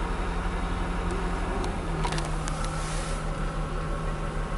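Heavy diesel snow-removal machinery (front loader and dump truck) running with a steady low engine drone. About two seconds in there is a brief hissing, clattering burst with a few sharp clicks.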